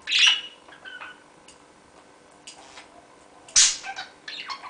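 Pet budgerigar giving a few short, harsh chirps and squawks, the loudest at the very start and about three and a half seconds in.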